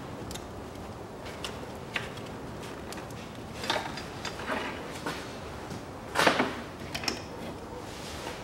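Plastic wiring connectors being unclipped from the fuel injectors of a Daewoo Matiz 0.8 engine by hand: a scattered series of clicks and scrapes, the loudest a longer scrape about six seconds in.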